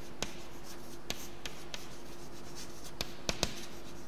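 Chalk writing on a blackboard: short scratchy strokes with several sharp taps as the chalk strikes the board while letters are written.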